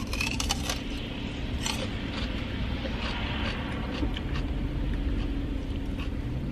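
Steady low hum of an idling car with a faint steady tone in it. Several short crisp crunches of food being chewed sound over it, most in the first second and again about two seconds in.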